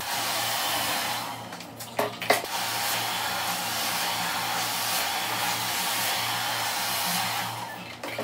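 Handheld hair dryer blowing steadily while long hair is blow-dried with a round brush. The airflow dips briefly about two seconds in, with a sharp knock, then runs on and dies away near the end.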